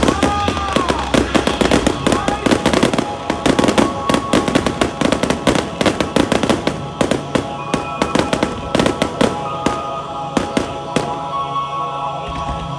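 Aerial fireworks going off in a dense, rapid run of crackles and bangs that thins out near the end, with music coming up underneath in the second half.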